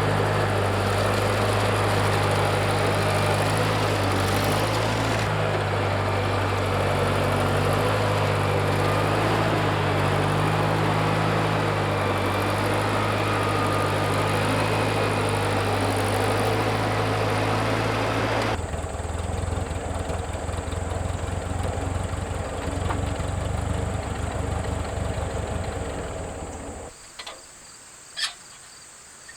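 1964 Massey Ferguson 35 tractor engine running steadily. About two-thirds of the way in the sound changes abruptly to a duller, rougher engine note. Near the end it drops away to a faint background with a few clicks.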